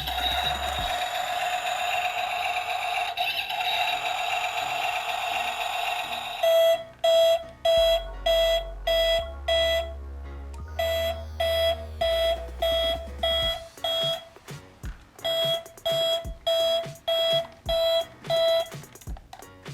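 Britains Big Farm Case IH Puma 195 toy tractor's battery sound unit: a steady electronic tone for about six seconds, then a run of short reversing beeps, about two a second.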